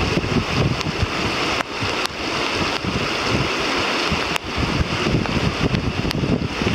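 Wind buffeting the microphone in uneven gusts over the steady rush of a shallow, fast river riffle, with a few sharp ticks.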